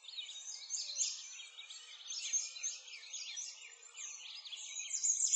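Several songbirds singing at once, a dense overlapping chorus of quick high chirps and trills.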